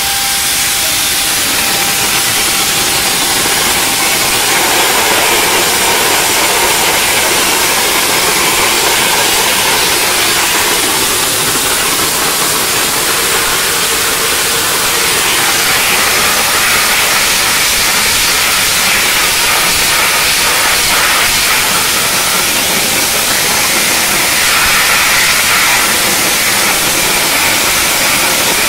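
Dry ice blaster running continuously, its nozzle giving a loud, steady hiss of compressed air driving dry ice pellets.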